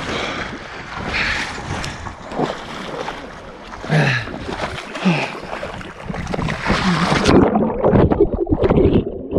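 Sea water splashing and sloshing against a handheld waterproof action camera with a swimmer's short gasps. About seven seconds in the camera goes under the surface and the sound turns muffled and low, the churn of water heard underwater.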